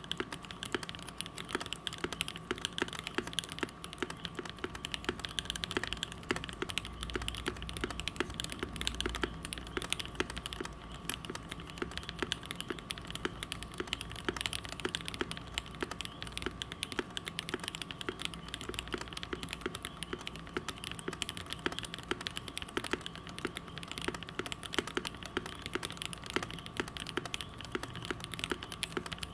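Typing on a custom Perry Works Mc65 mechanical keyboard: a rapid, continuous run of keystrokes on lubed linear switches (Gateron Red Ink housings, Tecsee Ruby stems) in an aluminium-plate, burger-mounted board with CRP R4 keycaps. A faint steady hum sits beneath the clicks.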